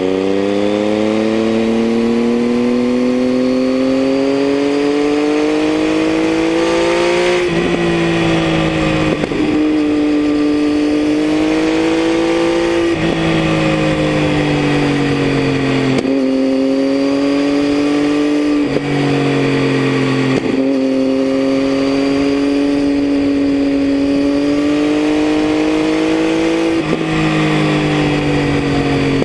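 Triumph Tiger 800's inline-three engine through a LeoVince aftermarket exhaust, under way on the road. Its note climbs steadily for the first seven seconds or so, drops with an upshift, then holds a steady cruising pitch with a few short breaks as the throttle is eased and reapplied.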